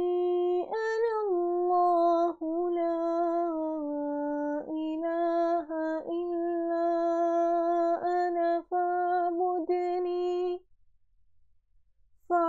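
A woman reciting the Quran in a slow melodic chant, holding long steady notes with a few short breaks. The voice falls silent for over a second near the end.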